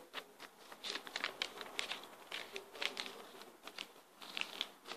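A sheet of paper rustling and crinkling as it is handled and creased into folds, in short, irregular crackles.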